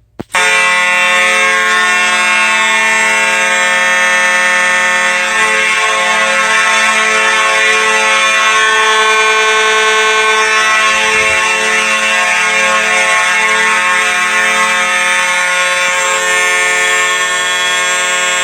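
Two Simplex 4903-series mechanical fire alarm horn strobes sounding together on alarm, a loud, steady, buzzing horn tone. They come on just after a short click at the start and sound continuously, with no pulsing.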